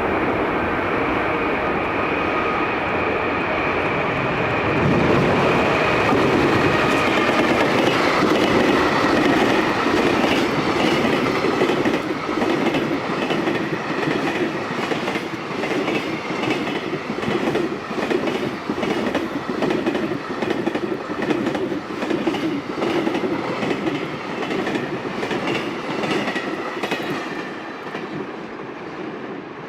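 Freight train passing close by: a steady electric motor whine at first, then a long run of rhythmic clickety-clack as the wagons' wheels cross the rail joints, fading away near the end.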